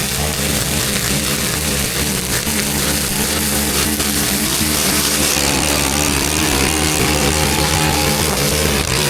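An engine running steadily, its note wavering slightly up and down.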